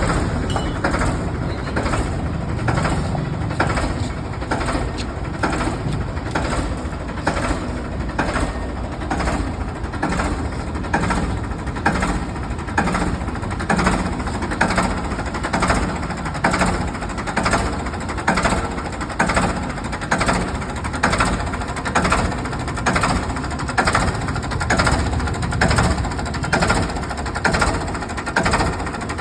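Ford 3600 tractor's three-cylinder engine running steadily, with an even, regular pulsing beat.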